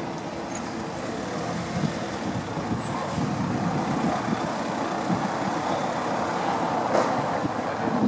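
A car driving slowly past over a cobblestone street, its tyre noise on the stones swelling and loudest in the middle of the passage. A short click near the end.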